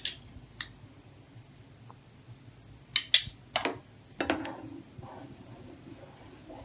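A wooden spatula knocking against a non-stick pan as it stirs milk: a few sharp clicks between about three and four and a half seconds in, the last running into a short scrape, with fainter taps near the start.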